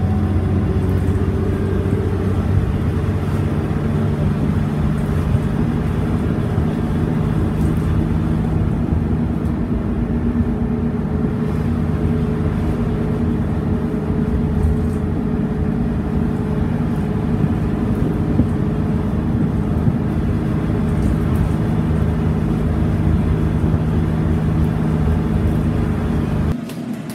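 Scania N113CRB bus's rear-mounted diesel engine running while the bus drives along, heard from inside the passenger saloon as a steady low drone.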